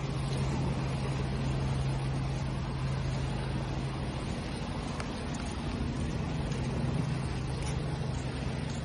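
Steady rushing of ocean waves under a constant low motor hum.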